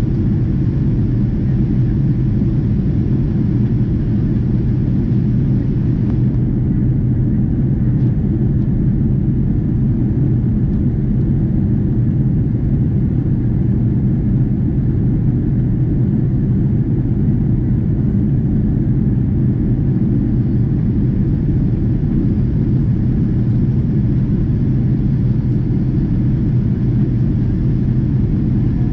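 Cabin noise of a Boeing 777-200ER in the climb out: a steady, loud low drone of its Rolls-Royce Trent 892 engines and the airflow over the fuselage, heard from a window seat by the wing.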